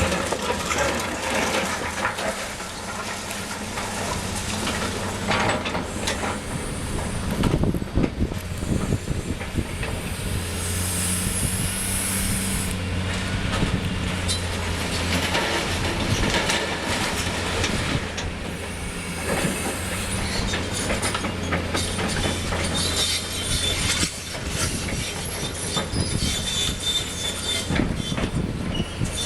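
Caterpillar 330C long-front excavator working: its diesel engine runs steadily under load while the bucket and steel parts knock and clank again and again, with a high hiss for about two seconds about ten seconds in.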